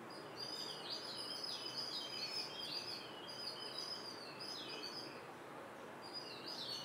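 Small birds chirping: quick runs of short, high chirps that dip in pitch and keep going, with a brief lull near the end.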